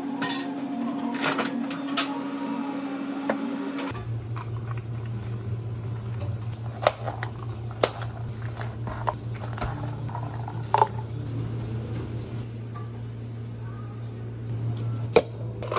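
Behind-the-counter cafe sounds: a steady hum from equipment, with sharp clicks and taps of clear plastic cups and dome lids being handled. The hum drops to a lower pitch about four seconds in.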